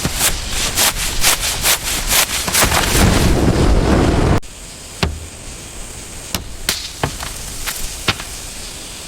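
A rapid, irregular series of sharp knocks and cracks over a noisy wash for about four seconds. Then it drops to a quieter hiss with a few scattered sharp clicks and knocks.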